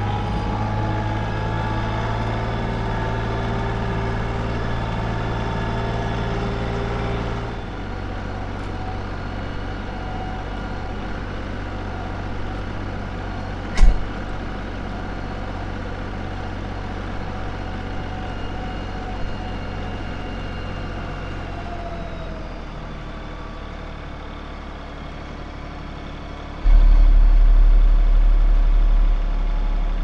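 Tractor engine running steadily while it carries a load on its pallet forks; its note drops and quietens about seven seconds in. A single sharp knock comes about halfway through, and near the end a loud low rumble sets in for a few seconds.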